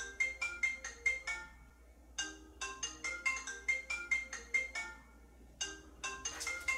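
Mobile phone ringing with a marimba-style ringtone. A short phrase of bright mallet notes repeats after a brief pause, starting over twice.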